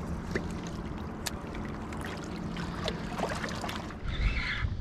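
Small waves lapping and trickling against shoreline rocks, with irregular small splashes and clicks over a steady low rumble. A brief louder rush comes near the end.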